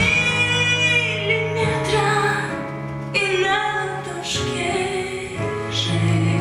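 Music: a song with a woman singing a sustained melody over instrumental backing.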